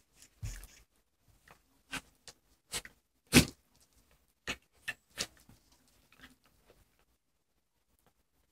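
A dog and a cat play-wrestling on a wooden floor: scattered short taps and thumps of paws, claws and bodies knocking on the floor and each other. The loudest comes about three and a half seconds in, and the scuffling stops about seven seconds in.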